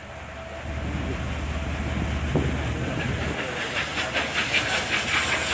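Peppercorn A1 Pacific steam locomotive 60163 Tornado working hard as it gets away, growing steadily louder as it nears, with a deep rumble beneath. About three seconds in, its rapid, even exhaust beats come through plainly over the hiss of steam.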